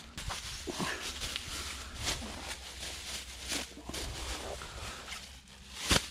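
Footsteps crunching on a stony, gravelly path, mixed with the crinkling rustle of a plastic bag being handled, in irregular short bursts, with a louder crackle near the end.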